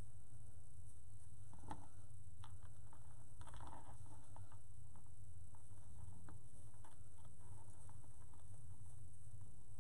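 Faint rustling and light clicks of cotton fabric strips being handled and knotted onto a wire wreath frame, over a steady low hum.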